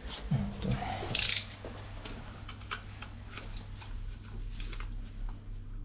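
A short rustling burst about a second in, then light, irregular clicks and ticks of small hand tools being handled, over a steady low hum.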